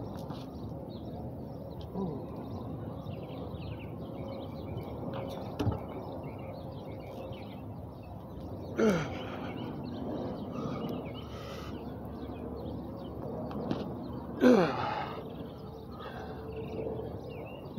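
Outdoor background noise with scattered faint bird chirps. Twice, about 9 and 14.5 seconds in, a loud short call or voice-like sound falls in pitch.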